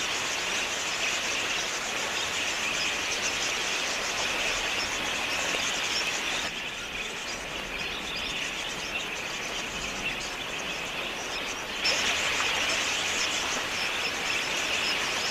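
A large flock of wild budgerigars chattering, a dense, continuous high-pitched twittering. It drops back abruptly about six and a half seconds in and comes up again abruptly near twelve seconds.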